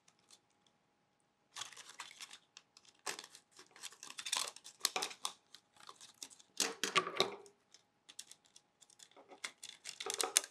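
Thin plastic Gatorade bottle crinkling and crackling as it is cut around with a utility knife and then scissors. The sound comes in several short bursts with pauses between them.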